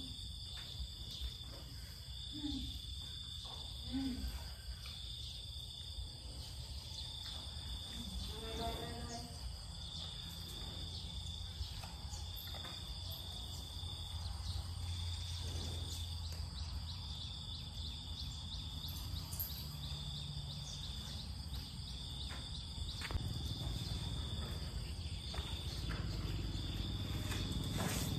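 Outdoor rural ambience: a steady high insect drone that pulses on and off, over a low wind rumble, with a few faint short low calls in the first several seconds.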